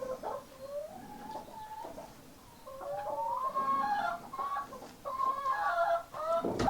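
Several chickens clucking and calling, with drawn-out rising and falling calls that grow busier after a couple of seconds, and a sharp knock near the end.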